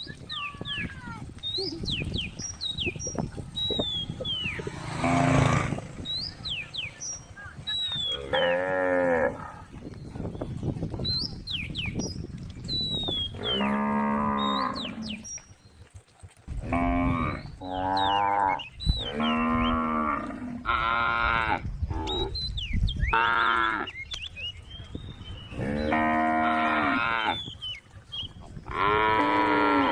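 A female cow mooing repeatedly, about nine calls. Some are short and some last over a second, and they come closer together in the second half.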